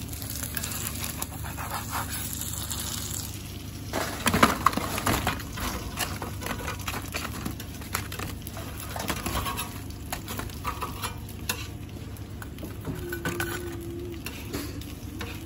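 Café kitchen clatter: scattered knocks and clinks over a steady low hum, busiest about four seconds in.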